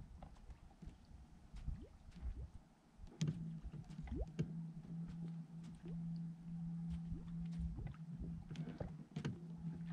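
Electric bow-mounted trolling motor humming on a boat, silent for the first few seconds, then coming on about three seconds in and running with brief cut-outs. Water laps against the hull underneath, with scattered small clicks.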